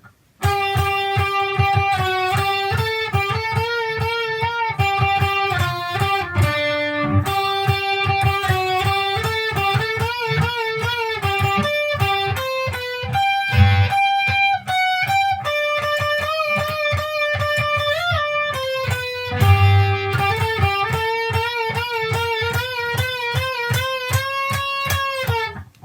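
Electric guitar solo: a lead line of held notes, with string bends and vibrato.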